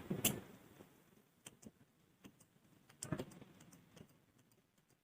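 Faint, scattered switch clicks, with a sharper click just after the start, as a flashlight is pressed on and off to flash the Morse letter B.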